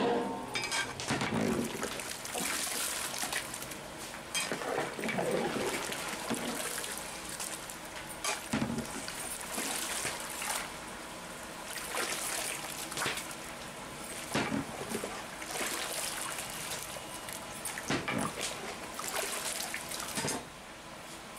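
Soaked rice splashing into a large aluminium pot of boiling broth from a slotted ladle, the ladle knocking and scraping in the pot every second or two over the bubbling liquid.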